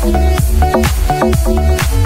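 Background music with a steady beat, deep bass and a repeating melody.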